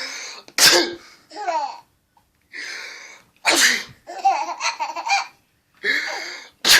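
Three sneezes, each a drawn-in 'ah' ending in a sharp burst, about three seconds apart. Between the second and third comes a run of quick high-pitched laughter.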